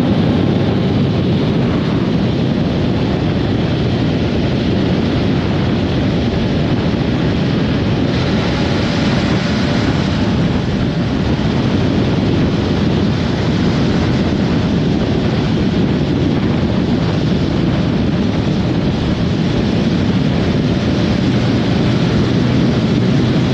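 Heavy wind rush on the microphone of a moving motorcycle, an MV Agusta Turismo Veloce 800, with engine and road noise under it, loud and steady.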